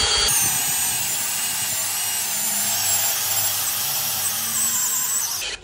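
DeWalt cordless drill driving a Milwaukee hole saw down through a composite deck board, the saw grinding steadily through the cut. It stops abruptly shortly before the end.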